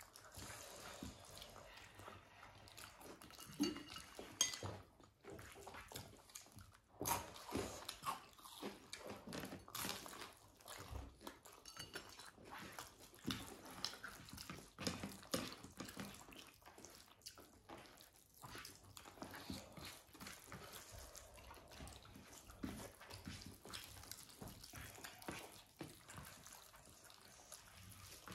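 Faint, close eating sounds of soft, wet khichdi: chewing and lip smacks, with many small irregular clicks and squishes.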